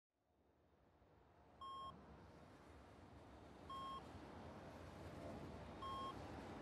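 Three short electronic beeps, evenly spaced about two seconds apart, over a low rumbling background that fades up from silence.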